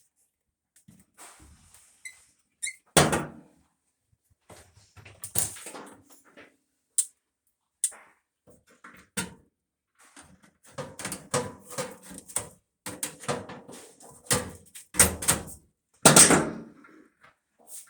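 Irregular knocks, thunks and sharp clicks of tools and dryer parts being handled during a wiring repair on the heating element, busiest in the second half with the loudest knocks about three seconds in and near the end.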